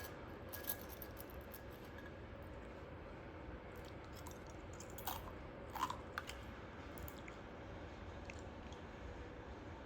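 A few light clicks and small crunches of eating, mostly clustered around the middle, over a faint steady room hum.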